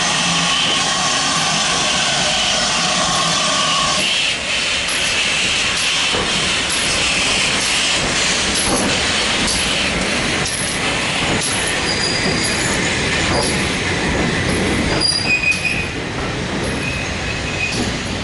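GWR 2800-class 2-8-0 steam locomotive 2807 and its coaches rolling past along the platform, with rail and wheel noise, a few knocks and intermittent high-pitched wheel squeal in the second half. A steady hiss with a few held tones cuts off about four seconds in.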